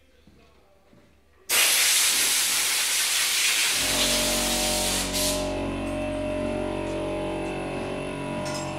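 A loud hiss of rushing air starts suddenly about a second and a half in and stops a few seconds later. Meanwhile a machine starts up about four seconds in and runs on with a steady hum.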